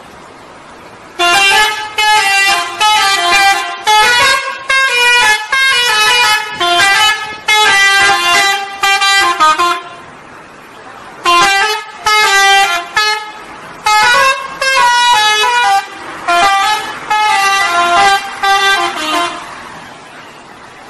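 Indonesian bus 'telolet' horn, a modified musical multi-tone horn, playing a quick melody of short notes. It plays two phrases with a pause of about a second and a half between them, over steady background noise.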